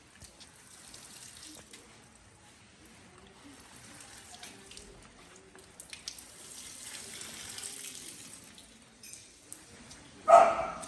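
Water running faintly with a few small clicks, then one short, loud dog bark near the end.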